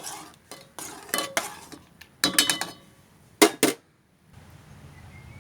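Metal kitchen utensils knocking and clinking against a cooking pot as boiled tamarind water is strained, several sharp strikes, some with a short ring, the loudest about three and a half seconds in. A low steady hum follows a brief dropout near the end.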